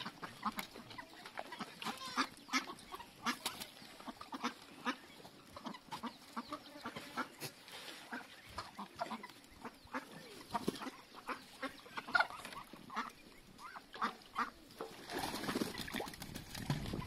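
A flock of domestic ducks quacking, many short calls one after another.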